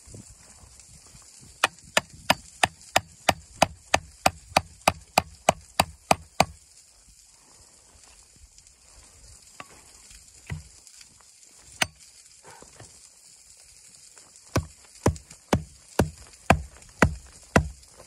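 Small hatchet chopping into a flat wooden stick: a quick run of about sixteen sharp strikes, about three a second, then a few scattered knocks, then a second run of about seven louder strikes near the end.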